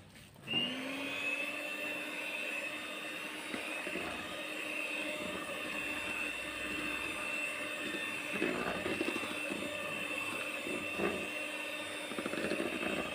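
Miyako electric hand mixer switched on about half a second in, its motor spinning up and settling into a steady whine as the beaters whip butter-sugar cream in a plastic bowl. The beaters rattle briefly against the bowl a few times in the second half.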